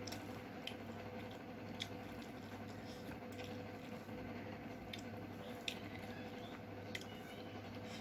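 Close-up eating sounds: wet chewing and squishing of chicken curry and rice, with a few scattered sharp little clicks over a steady low hum.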